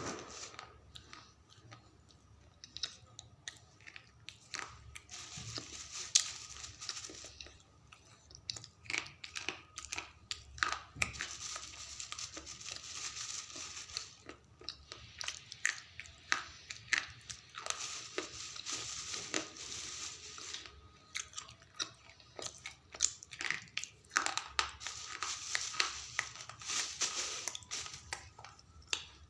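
A person biting and chewing slate pencil, close up, with many sharp crunches in dense, irregular runs.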